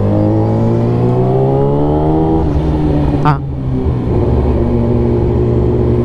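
Yamaha R6's inline-four engine pulling in gear, its pitch climbing over the first two seconds or so. After a short break about three seconds in, it runs on at a steady pitch.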